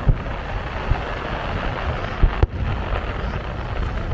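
Aerial fireworks going off: three deep booms, one near the start and two close together a little past the middle, over a steady rumble of wind on the microphone.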